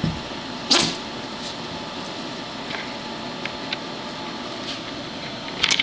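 Two dogs play-wrestling: scuffling with light clicks over a steady hiss, and two short, sharp noisy sounds, one about a second in and one near the end.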